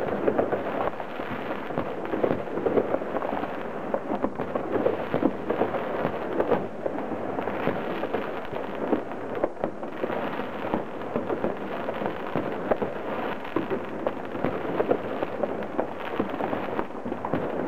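Many fireworks and firecrackers going off all around at a distance: a dense, unbroken crackle of bangs and pops, with no single blast standing far above the rest.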